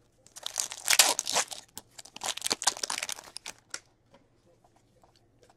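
Foil wrapper of an Upper Deck hockey card pack being torn open and crinkled, a few seconds of irregular crackling and tearing that dies away before the end.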